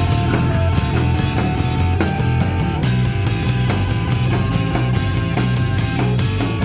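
Rock band playing live: heavy bass and drums with a cymbal struck about two and a half times a second, under sustained guitar notes.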